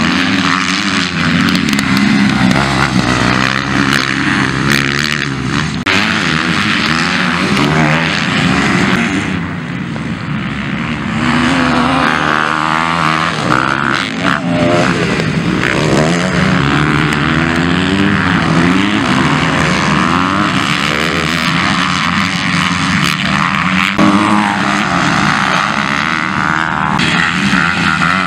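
Motocross bike engines revving hard and dropping back over and over as riders race past, with the pitch climbing and falling through the gears. The sound jumps abruptly a few times.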